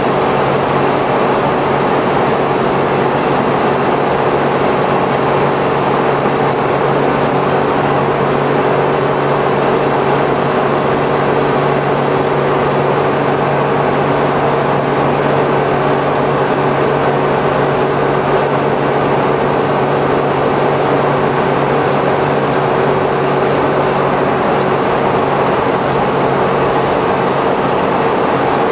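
Interior running noise of a Suzuki Every kei van with the Auto Gear Shift transmission, heard from the cargo area while cruising at steady speed. A heavy, steady drone from the engine and drivetrain mixes with tyre noise on the wet road, with no gear change.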